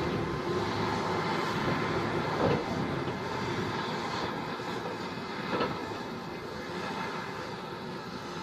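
Heavy construction machine's engine running steadily, with two short knocks, about two and a half and five and a half seconds in.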